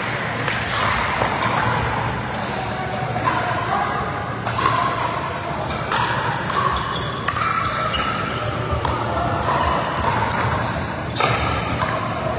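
Pickleball paddles striking a plastic ball in a rally: sharp pocks at irregular intervals, about one a second, ringing in a large sports hall.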